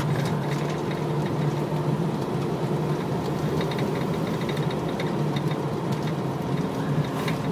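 Steady engine and road hum inside the cab of a 2006 Jeep Wrangler Sport cruising at about 30 mph, its six-cylinder running smoothly. Faint light rattling from the loose door-top window and frame runs through it.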